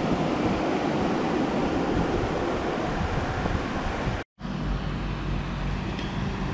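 Steady outdoor storm noise, an even rushing hiss. It breaks off sharply about four seconds in, and after the break a low steady hum runs under it.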